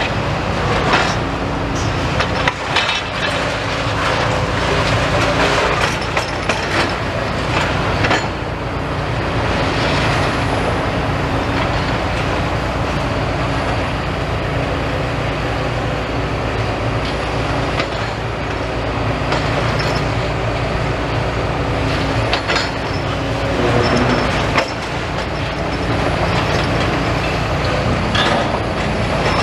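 Demolition excavator's diesel engine running steadily, with irregular crunching and metallic clanking as it breaks into the building.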